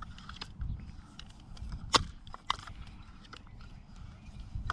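Barra 1866 multi-pump air rifle being pumped by its pump arm: a few sharp mechanical clicks and clacks at uneven intervals, the loudest about two seconds in, over a low steady rumble.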